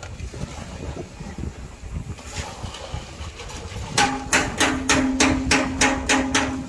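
Hammering on a construction site: a fast, even run of hammer blows, about four a second, each with a ringing note, starting about four seconds in after low background noise.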